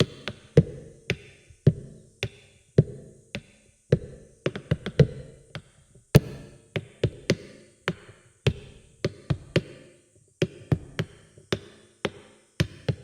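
Sharp percussive taps in a loose, irregular rhythm, one to three a second with a few quick flurries, each ringing briefly.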